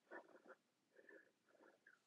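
Near silence: room tone with a few faint, brief soft sounds.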